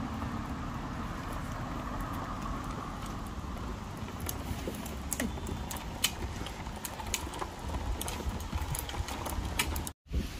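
Wind rumbling on the microphone, with light irregular clicks from about four seconds in as the hard plastic wheels of a toddler's four-wheeled walking bike roll over the joints of the paving. The sound cuts out for a moment near the end.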